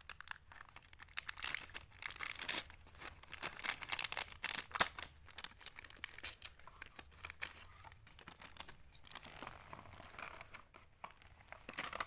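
A sealed medicine pack being opened by hand: crinkling and tearing of its wrapping in quick runs of short crackles, busiest in the first half.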